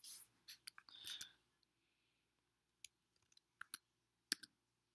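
Faint, scattered clicks of computer keyboard keys being typed, with a soft rustle about a second in.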